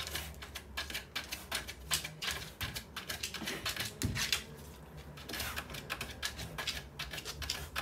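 A dog's claws scratching and scraping rapidly at a wooden floor and the base of a cabinet as it paws underneath to reach something hidden there. The clicks and scrapes come in a quick, uneven run, with a short lull about halfway through.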